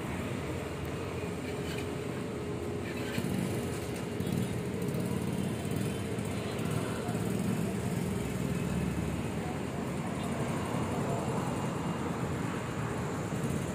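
Steady low engine rumble mixed with road traffic noise, without clear changes or distinct events.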